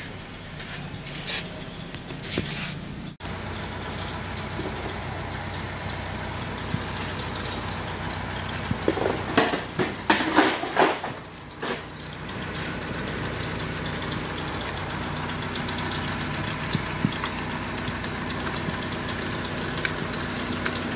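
Honda Civic FD engine idling steadily while misfiring, a fault that points to a weak ignition coil or a worn spark plug. A few loud, short sharp sounds come about nine to twelve seconds in.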